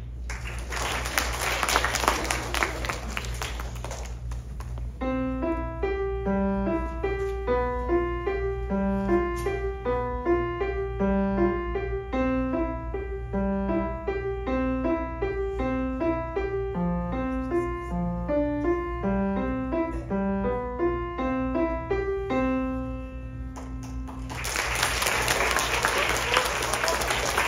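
Audience applause, then a short piece played by a child on a Yamaha grand piano: a quick run of notes over a repeating bass line, ending on a held low note, followed by applause again. A steady low hum sits underneath throughout.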